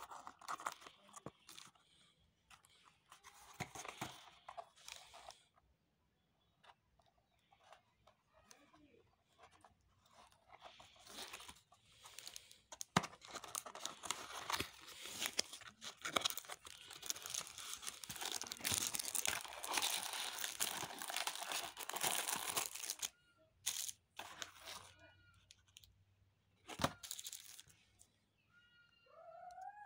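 Kraft-paper courier mailer being torn open and handled by hand: irregular tearing, crunching and crinkling, most continuous about halfway through.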